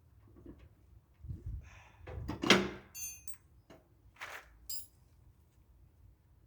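Wrenches and metal parts clanking and clinking during work on a lawn tractor's bolts: a handful of separate knocks, the loudest about two and a half seconds in, with a brief metallic ring just after it.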